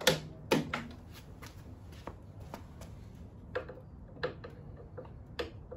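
Scattered sharp clicks and snaps from a taiko drum-stretching rig as its hydraulic bottle jacks are let down. The roped drum and wooden frame creak and pop as the tension on the head is released, with the two loudest snaps near the start.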